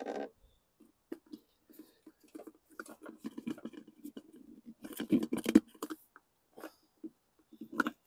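A hard plastic lawn mower fuel tank being handled and fitted against the engine: a run of irregular clicks, knocks and scrapes, loudest in a cluster about five seconds in.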